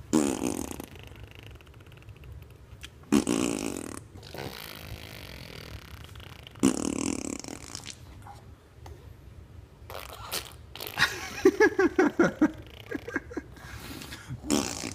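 A toddler making fart sounds with his mouth, blowing raspberries: three separate blurts about three seconds apart, then a quick run of short sputters and one last blurt near the end.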